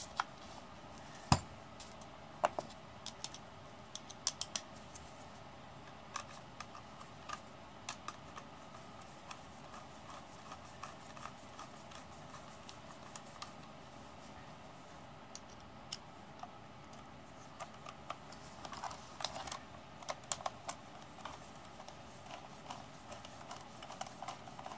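Scattered light metallic clicks and taps of a screwdriver and bolts being worked into a starter motor's solenoid, with a sharp knock about a second in and a busier run of clicks near the end.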